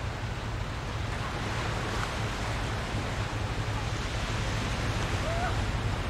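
Summer beach ambience: a steady wash of surf with wind noise, and faint children's calls from the distance a couple of times.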